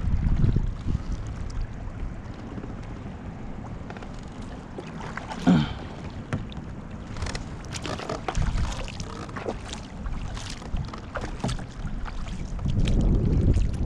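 Wind rumbling on the microphone aboard a small fishing boat on open water, with water sounds and scattered knocks against the boat. The wind swells at the start and again near the end, and there is one short pitched squeak about five and a half seconds in.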